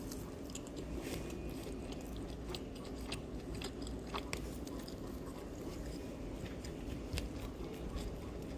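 Someone biting and chewing crispy fried egg rolls, with irregular small crunches and mouth clicks over a low steady background hum.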